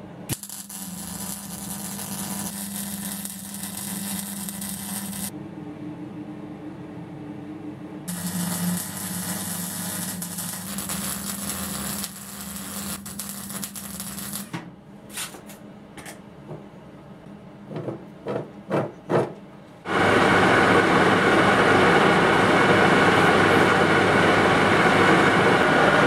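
Electric arc welding on a steel shaft, laying on weld metal where the pulleys will sit: the arc crackles and hisses in two long runs, then in several short bursts. About 20 seconds in, a metal lathe starts and runs loudly, turning the welded-up shaft.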